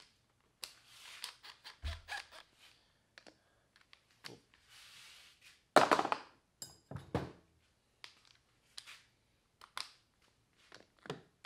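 Scattered metal clinks and knocks of hand tools and bolts being handled while the 8 mm bolts come out of a Honda CR125 engine's outer right-side case cover, with a louder thunk about six seconds in and another about seven seconds in.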